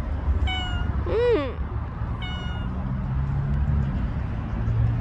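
A cat gives one short meow that rises and falls in pitch about a second in, with two brief steady-pitched squeaks before and after it. A low steady hum comes in during the second half.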